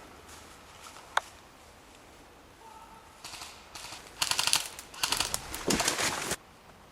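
Airsoft guns firing several rapid full-auto bursts of fast clicking, the loudest in the second half and cutting off abruptly near the end, after a single sharp click about a second in.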